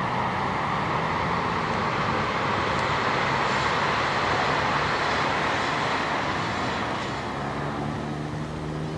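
Chizu Express HOT7000-series 'Super Hakuto' diesel multiple unit passing at speed: steady noise of wheels on rails and running diesel engines, easing off about seven seconds in as the train moves away. A low steady hum comes in near the end.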